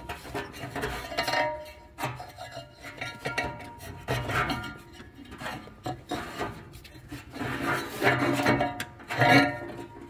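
Hands and tools rubbing and clinking against metal engine parts while a drive belt is worked onto the pulleys, in a series of irregular clanks and scrapes.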